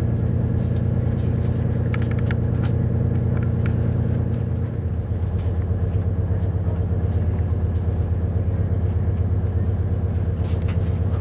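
Underfloor diesel engine of a Class 222 Meridian diesel multiple unit heard from inside the coach, a steady low hum. A few faint clicks come about two to three seconds in, and about five seconds in the note dips and settles into an even idling throb as the train stands at the platform.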